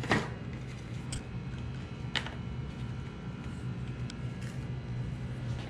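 A few faint, scattered clicks and knocks as a bicycle wheel is handled and fitted back into the frame, over a steady low hum.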